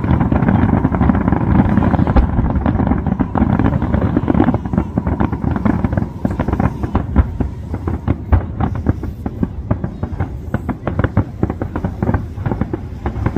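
Aerial fireworks going off: a dense, rapid crackle of many small bursts, over a heavier low rumble that thins out about a third of the way in.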